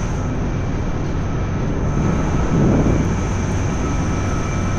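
Steady city street background: a continuous low roar and hum, like traffic, with a brief faint murmur about two to three seconds in.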